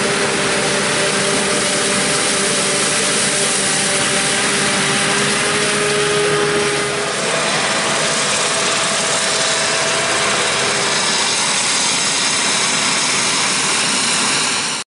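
Claas Jaguar 970 forage harvester chopping standing corn, its engine and chopping drive running steadily under load with a held whine, and a tractor running alongside with the silage wagon. The whine shifts higher about halfway through.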